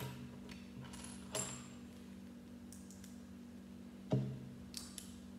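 Plastic Lego pieces clicking and tapping as they are pressed together and handled on a wooden tabletop, a few scattered clicks with one louder knock about four seconds in. A faint steady low hum runs underneath.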